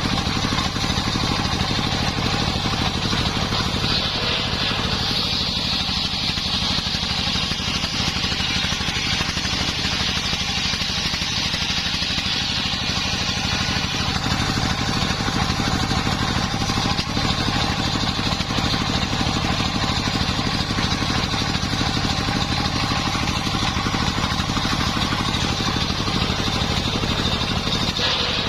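Engine of a homemade circular sawmill running steadily under load, with a higher hiss over it that grows louder for several seconds partway through.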